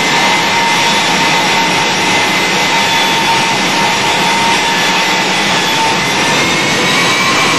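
Westinghouse jet engine mounted in a school bus, running: a loud, steady rush with a high whine whose pitch rises slightly near the end.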